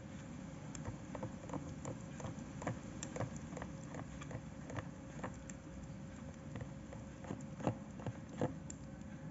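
Two kittens eating wet cat food from a glass dish: an irregular run of small wet clicks and smacks from their chewing and licking, with two louder clicks near the end. A faint steady hum sits underneath.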